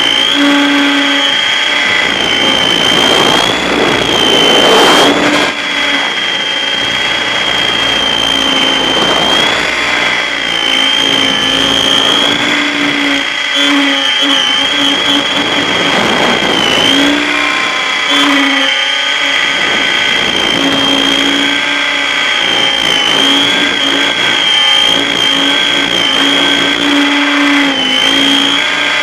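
T-Rex 800 RC helicopter in flight, heard up close from a camera mounted on it: a steady high whine from its motor and rotor drivetrain that dips slightly now and then as the pilot works the controls. Rushes of wind noise come through a few seconds in and again around the middle.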